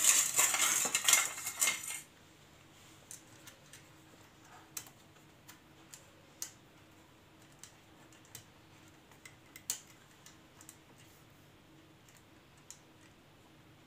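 Metal hand tools clinking and clattering against engine parts for about two seconds while a bolt is tightened, then occasional light clicks and taps.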